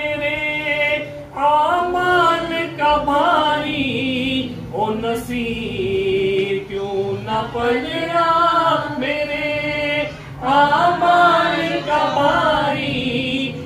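Men's voices singing a naat unaccompanied, in long chant-like phrases whose pitch bends and slides, with short breaks for breath between the phrases.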